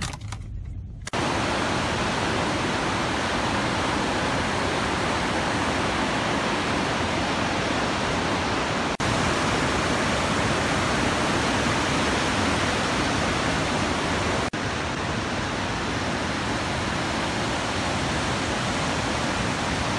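Fast river water rushing steadily, a dense even wash of noise that starts about a second in, with two abrupt breaks where the recording is cut.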